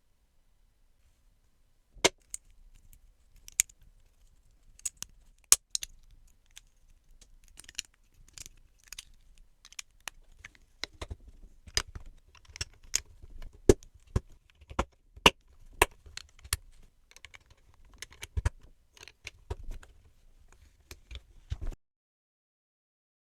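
Plastic LEGO bricks clicking and clattering as they are handled and pressed together, in an irregular run of sharp clicks that starts about two seconds in and stops shortly before the end.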